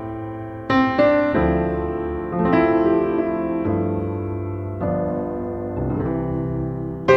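Background piano music: slow chords struck about once every second or two, each left to ring and fade.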